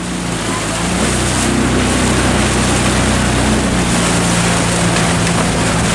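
A motorboat engine running steadily, with wind and water noise over it.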